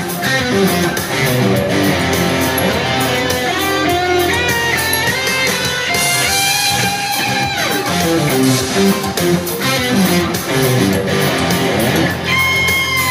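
Overdriven lead electric guitar, a Music Man Axis through a Mooer Fried Mien micro preamp with delay, playing a melodic solo line over a backing track. About seven seconds in a note slides a long way down in pitch, and near the end a high note is held.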